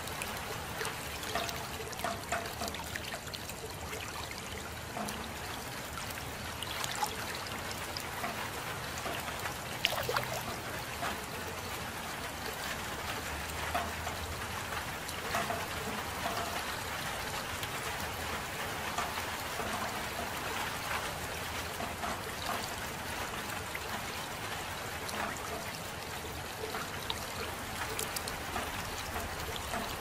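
Steady soft rain with many close drips and trickling water; one sharper drop stands out about ten seconds in.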